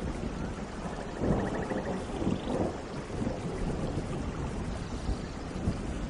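Steady rain with a low rumble of thunder underneath, the rumble swelling about a second in.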